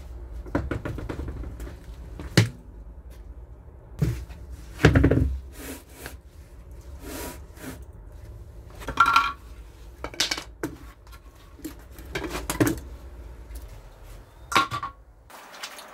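Scattered clinks and knocks of hard, partly metallic objects being handled and set down, over a steady low hum that cuts off near the end.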